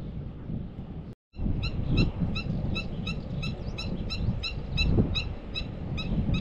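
A small bird calling a rapid, even series of short high notes, about three a second, over low wind rumble on the microphone. The audio drops out briefly about a second in.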